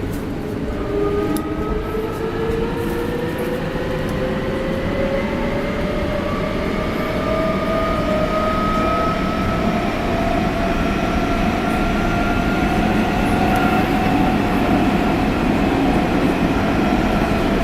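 Nagoya Municipal Subway 6000 series car's GTO-thyristor VVVF inverter and traction motors whining inside the car, several tones rising slowly together as the train gathers speed over the rumble of the running gear. This unrenewed car is known for an unusually strong abnormal GTO noise and for its inverter tones running out of step with the neighbouring car.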